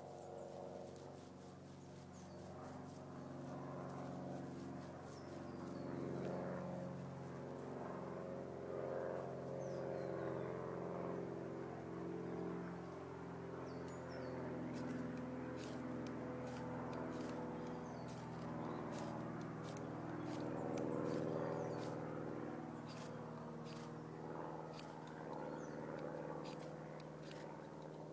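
A low engine drone, swelling and fading, carries through. From about halfway, short sharp scrapes of a ferro rod struck at a tinder bundle come at irregular intervals.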